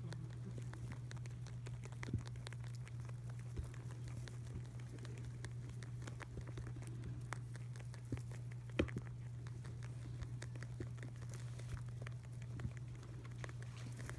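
Baby Holland Lop rabbits munching hay: many small crunches and rustles with a few sharper clicks, the loudest about nine seconds in, over a steady low hum.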